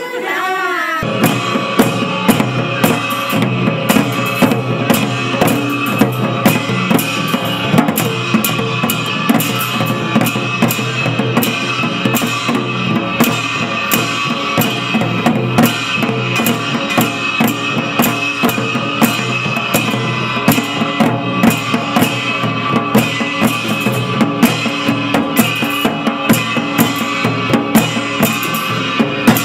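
Traditional Himachali drum ensemble playing a fast, steady beat: a large brass-shelled barrel drum struck with curved sticks, a big shallow frame drum and clashing brass cymbals. Women's group singing breaks off about a second in as the drumming starts.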